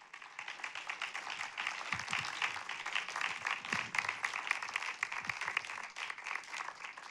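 Audience applauding, a dense, even patter of many hands clapping.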